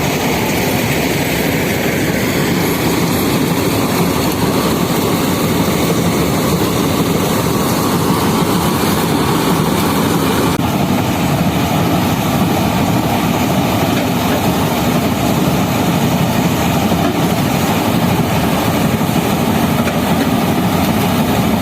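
Paddy cutting machine running steadily at work: a loud, even engine and machinery noise, with a slight change in its tone about halfway through.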